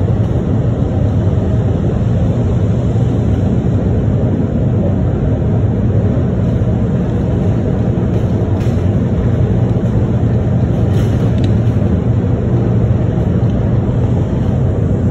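Miami Metromover rubber-tyred people-mover car running along its elevated guideway, heard from inside the car: a steady low rumble of tyres and drive, with a couple of faint clicks near the middle.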